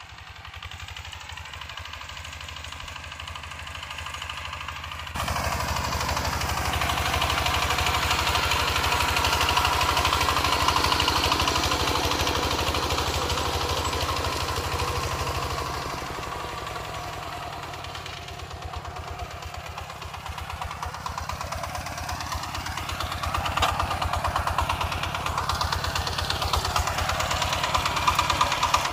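Single-cylinder diesel engine of a two-wheel walking tractor running steadily under load while pulling a disc plough through the soil, its firing beats even and rapid. It is faint at first, grows louder, and is suddenly much louder about five seconds in; it eases around the middle and swells again near the end.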